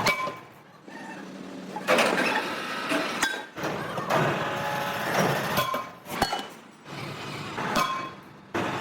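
Metal being worked by hand: repeated clinks and hammer strikes on metal parts, several leaving a short ringing tone, between stretches of rough scraping or grinding noise.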